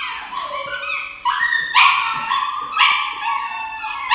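A dog crying out in a string of high yelps and howls, several a second apart, many falling in pitch, in distress while held down for an injection.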